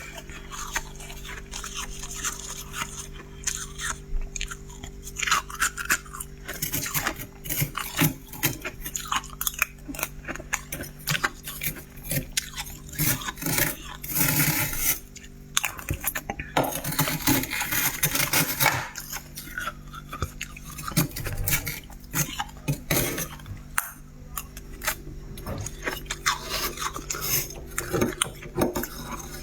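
Freezer frost being scraped loose and crunched while chewed: many short, irregular crunches and scrapes over a steady low hum.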